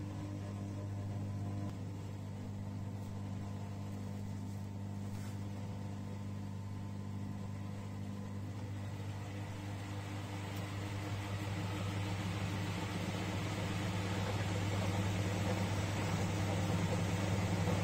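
1994 Bompani BO27027 front-loading washer-dryer running a wash, its drum tumbling laundry in water over a steady low motor hum. From about ten seconds in it grows louder, with a rising hiss.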